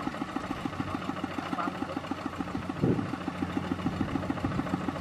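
Kubota ZT155 single-cylinder diesel idling with an even chug of about ten beats a second. There is one dull thud a little before the three-second mark.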